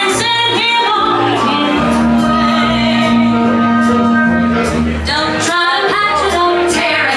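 Show-tune music with singing, loud and steady, with one long held note in the middle.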